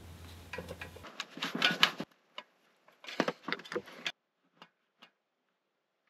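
Track pump hose end being screwed by hand onto a presta tyre valve: a run of small clicks and rubbing handling sounds, then a couple of faint ticks.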